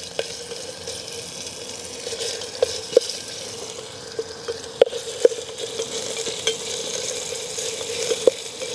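Raw sausages sizzling as they brown in olive oil in a stainless steel billy pot, stirred with a wooden spoon. The spoon knocks against the pot every second or so, and each knock rings briefly.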